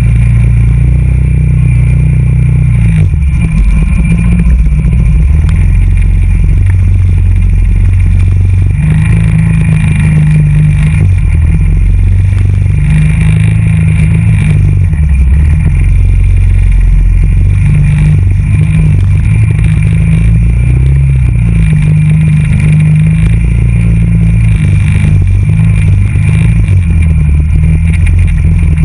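TGB Blade 425 quad's single-cylinder engine running as it is ridden over a rough dirt track, the engine note rising and falling with the throttle, heard close to the front wheel along with tyre and gravel noise.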